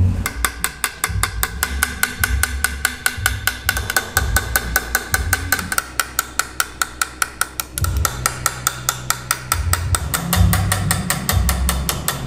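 Small hammer tapping a hand-engraving chisel into a steel sword blade clamped in a vise: a rapid, even train of sharp metallic taps, several a second, with the blade ringing faintly under the strokes. A low rumble comes and goes underneath.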